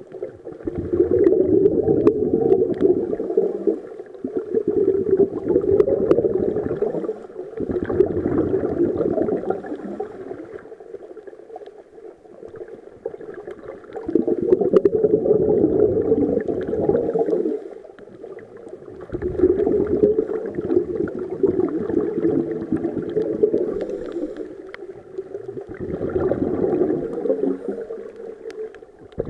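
Scuba diver's exhaled breath bubbling out of the regulator underwater, in bursts a few seconds long with quieter pauses between, about six in all.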